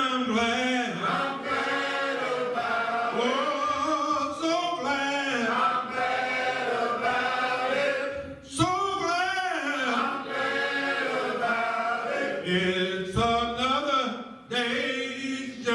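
Men's church choir singing together, long held notes in slow phrases with short breaks between them.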